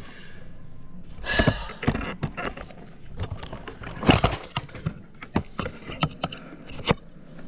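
Irregular clicks and light knocks of the mower's parking-brake linkage and safety interlock switch being worked by hand, about a dozen in all, the loudest about four seconds in.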